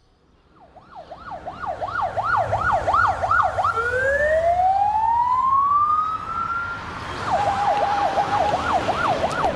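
Electronic emergency-vehicle siren: a fast up-and-down wail of about three cycles a second, then one long rising wail, then the fast wail again over a steady tone near the end.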